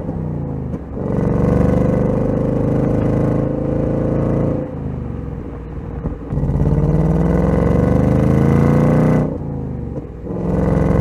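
Ford Mustang Dark Horse's 5.0-litre V8 exhaust, rising in pitch as it revs, then dropping back, three times over: twice in full and once more near the end.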